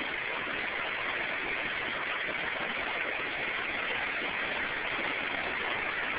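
Steady rushing water of the Yaque River running in flood after a tropical storm, an even noise with no breaks.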